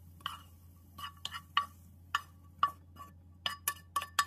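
A frying pan and wooden spatula clinking against a ceramic plate as food is scraped from the pan onto it. About a dozen sharp, irregular clinks, each with a short ring, coming faster near the end.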